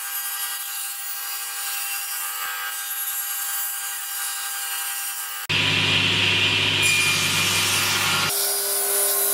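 Table saw with its blade tilted to 20 degrees ripping a bevel along the edge of a wooden strip, the blade's whine steady through the cut. About five and a half seconds in the sound changes abruptly to a crosscut of short pieces on a sled, and changes again near the end.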